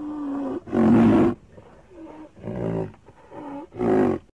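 Deep animal roars and growls: a run of short, loud calls about one a second, with lower moaning tones between them.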